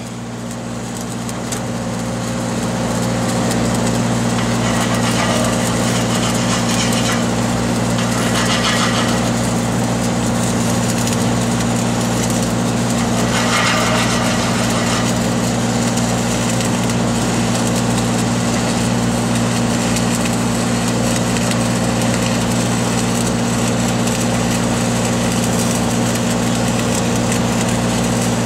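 Engine of an engine-driven welding machine running steadily with an even low hum, over a constant noisy hiss.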